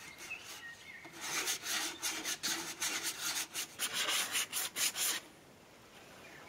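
A small steel blade scraping along wood in quick repeated strokes, starting about a second in and stopping about a second before the end.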